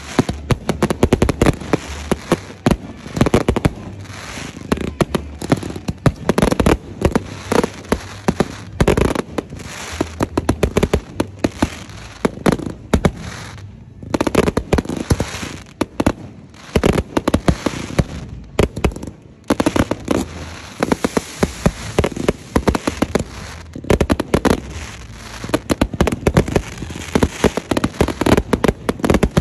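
Fireworks going off: a rapid, near-continuous string of sharp bangs and crackles that eases briefly about 14 and 19 seconds in.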